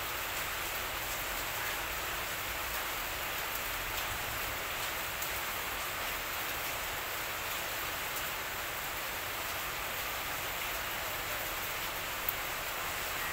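Steady, even hiss of background noise with no rise or fall, and one faint tick near the end.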